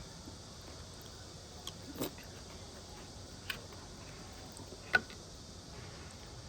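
A few short, sharp clicks or taps, four in all, the loudest about five seconds in, over a faint steady hiss.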